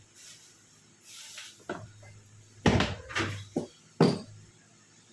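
A short hiss, then a series of sharp knocks and clunks, with two loud ones a little before the third second and at the fourth second, like hard objects being handled or set down.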